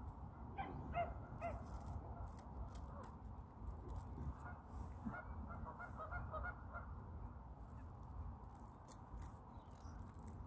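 Geese honking on a lake: three honks about half a second apart near the start, then a run of quicker short calls between about five and seven seconds in, over a low steady rumble.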